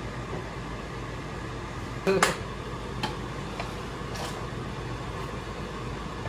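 Steady low hum with a few knocks and clinks of cookware and utensils: a sharp clatter about two seconds in, then lighter clinks of a metal pot lid and spoon as a pot is uncovered and stirred.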